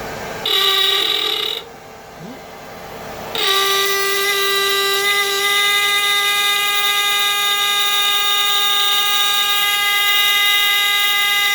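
Royalarm combination fire and burglar alarm set off by the heat of a hairdryer. A hairdryer blows at the start, then the alarm sounds a loud, steady tone about half a second in, cuts off about a second later, and starts again a few seconds in, holding steady.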